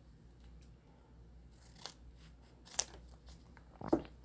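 Scissors snipping open a small foil sachet of wine yeast, with light crinkling of the packet and a few sharp clicks, the loudest about three seconds in.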